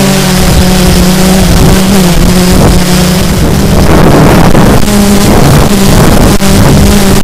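Drone's electric motors and propellers heard from the camera it carries: a loud steady hum whose pitch shifts a few times, with wind rushing over the microphone that swells from about four seconds in.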